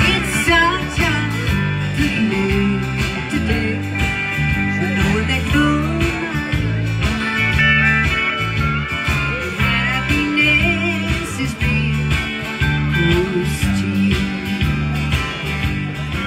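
Background country music with guitar and a singing voice over a steady beat.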